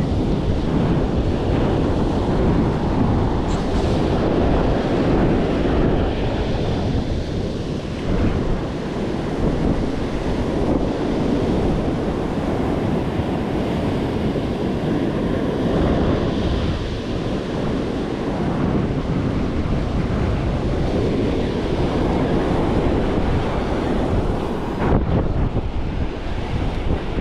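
Surf breaking on a sandy beach, with strong wind buffeting the microphone, and a brief knock near the end.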